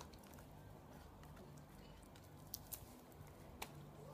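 Near silence with three faint, sharp clicks, two close together about two and a half seconds in and one a second later, as a puppy bites and tugs at a toy chew bone.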